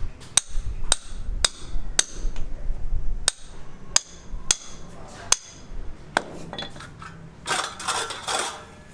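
Hammer blows, roughly two a second, each with a brief ring, stopping about six seconds in. A short burst of clattering follows near the end.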